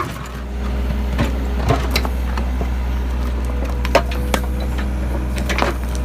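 Foundation-repair machinery running with a steady low drone, with scattered sharp clicks and knocks.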